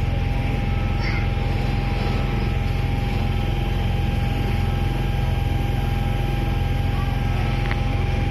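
Steady low rumble of trains at a station, with a constant high-pitched whine over it that holds unchanged throughout.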